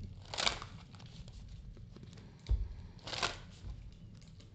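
A deck of oracle cards being shuffled by hand: two soft swishes of the cards about three seconds apart, each with a low bump just before it.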